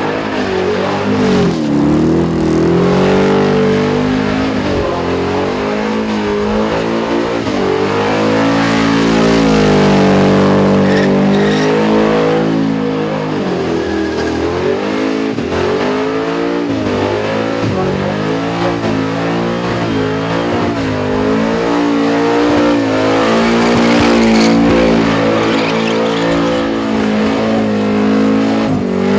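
Supercharged, methanol-fuelled Holden VK Commodore burnout car held at high revs, its engine note rising and falling every second or two as the throttle is worked through a burnout.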